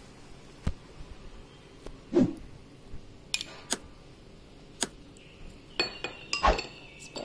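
Glass bowls and a metal spoon clinking and tapping as ketchup is poured onto a pizza base in a glass bowl and spread with the spoon. There are scattered light clicks, a louder knock about two seconds in, and a cluster of clinks near the end.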